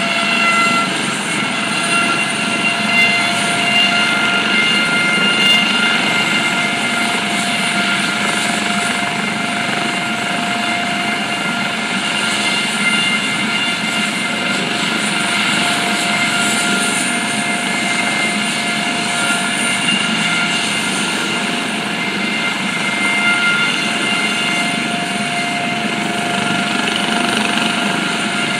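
EMS helicopter running on the ground, its turbine engines and rotor giving a steady, loud drone with a constant high-pitched turbine whine.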